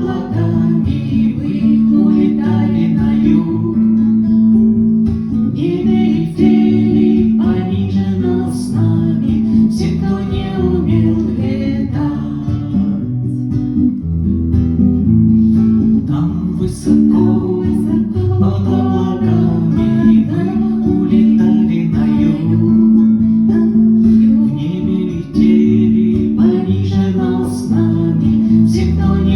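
Acoustic guitar music: strummed and plucked chords carrying a song accompaniment.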